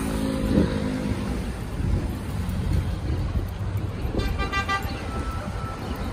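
City traffic at a busy intersection, with a steady rumble of idling and moving cars. A car horn gives one short toot about four seconds in.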